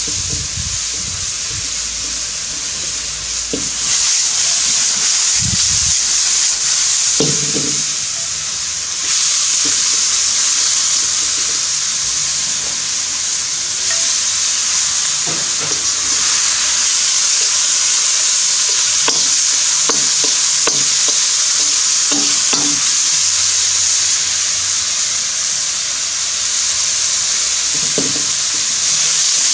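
Chicken stir-frying in a very hot round-bottom wok, the oil sizzling loudly and steadily. Now and then the metal spatula scrapes or knocks against the wok as the food is tossed. The sizzle gets louder about four seconds in and again about nine seconds in.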